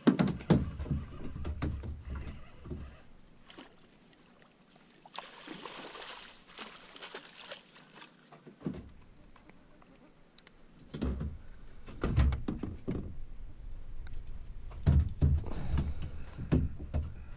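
Irregular knocks and thumps in a boat as a freshly caught zander, which has swallowed the jig, is handled: one spell in the first few seconds and another, denser one from about eleven seconds on, with a short rush of hissing noise around five seconds in.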